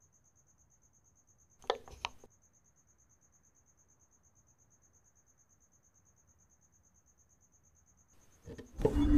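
Faint, steady, high-pitched cricket chirping that pulses evenly throughout. Two short wooden-sounding knocks come about two seconds in, and a loud swell of music comes in near the end.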